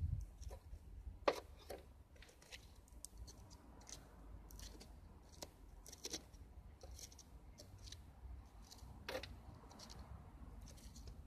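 Faint, scattered clicks and crackles of dying barbecue embers being stirred and shifted about with a laurel stick. Two sharper knocks stand out, one about a second in and another late on.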